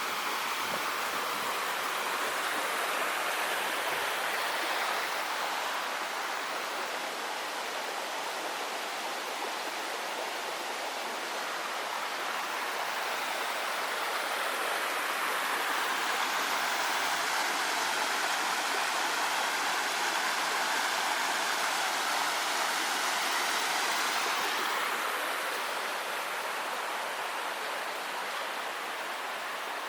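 Creek water rushing in a steady, even wash, swelling a little about halfway through and easing off near the end.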